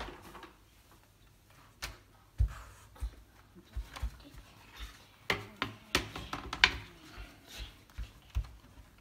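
Bottom cover of a Dell Inspiron 15 5000 laptop being fitted back on and pressed down by hand, making scattered light clicks and soft knocks at irregular intervals.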